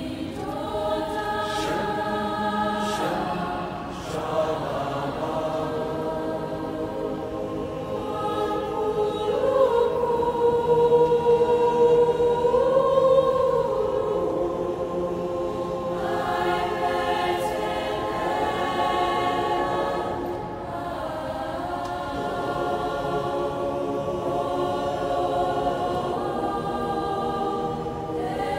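Mixed choir of young women's and men's voices singing long held chords in a large stone church, swelling to its loudest about halfway through.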